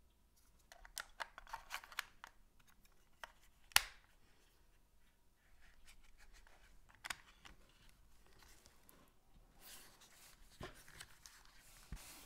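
Faint plastic clicks and scraping as a battery dummy is pushed into a Canon EOS M50's battery compartment and the compartment door is shut, with one sharp click a little under four seconds in and a few more scattered clicks and a brief rustle later.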